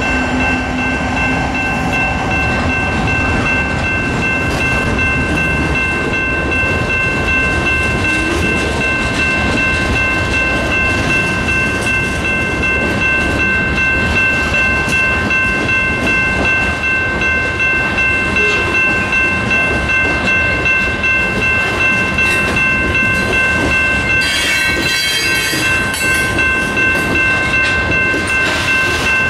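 Freight cars of a long mixed freight train rolling past at close range: a dense, steady rumble of steel wheels on rail with a regular clacking of wheel sets over the joints, under a steady high-pitched squeal. A low engine drone from the departing locomotive fades out in the first few seconds, and a brief hissing screech comes near the end.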